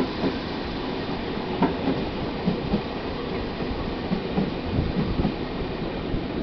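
Electric commuter train running through the station on the adjacent track, its wheels clacking irregularly over the rail joints above a steady rumble. Near the end, the train at the platform starts pulling away.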